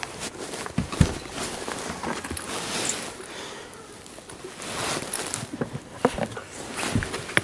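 Scattered knocks and thumps on a bass boat's deck at irregular intervals, over a light steady hiss.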